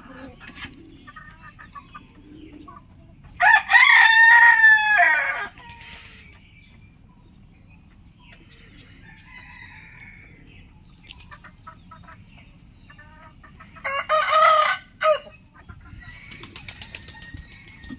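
Rooster crowing twice: a long crow of about two seconds, then a shorter crow of about a second roughly ten seconds later, with faint chicken calls in between.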